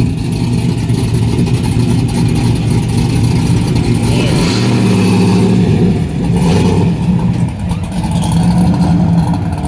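A loud car engine running, its note changing about four and a half seconds in.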